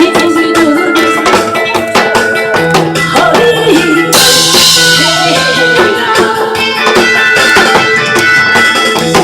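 Loud instrumental music with a steady drum beat and a wavering melody line; a cymbal crash about four seconds in.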